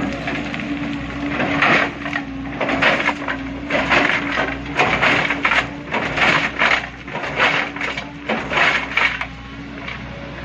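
Boulders and rocks crashing and clattering as an excavator loads them into a dump truck, a run of irregular hard impacts over several seconds, over a steady diesel engine hum.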